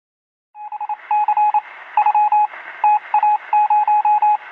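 Morse code: a single-pitch beep keyed on and off in short and long elements over a radio-like hiss, starting about half a second in.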